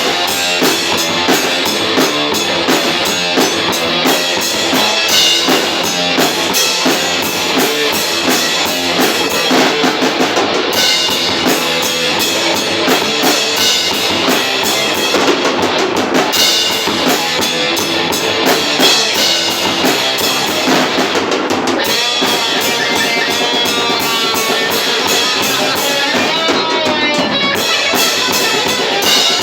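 A metal band playing live: a drum kit with bass drum and rimshots driving under electric guitar, loud and dense without a break.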